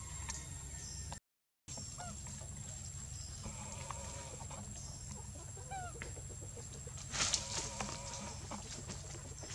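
Scattered short, clucking animal calls over a steady low hum, with a brief louder burst about seven seconds in. The sound cuts out briefly after about a second.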